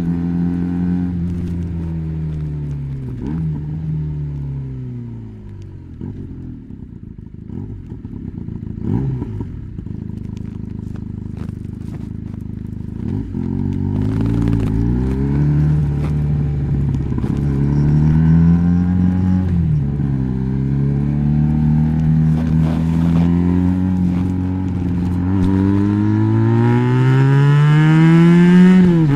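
Benelli BN302's parallel-twin engine breathing through an Arrow exhaust with the dB killer fitted, being ridden: the revs fall away and it runs quieter for a few seconds, then it pulls up through the gears, the pitch climbing and dropping at each shift, getting louder toward the end.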